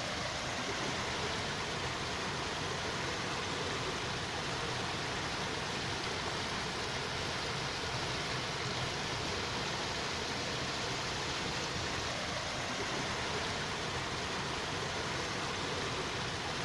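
A steady, even rushing hiss with no distinct sounds in it.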